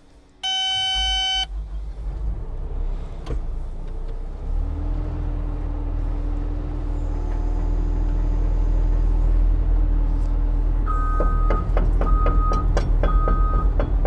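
Cat 314E hydraulic excavator's diesel engine running, with one long electronic beep about half a second in. From about four and a half seconds a steady whine joins as the machine lifts one track off the ground. In the last few seconds the travel alarm beeps about once a second, with metallic clanks from the raised track as it is spun backwards.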